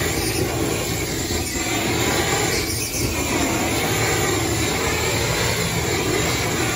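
Hand-held gas blowtorch flame-searing food on a grill: a steady rushing flame noise mixed with sizzling.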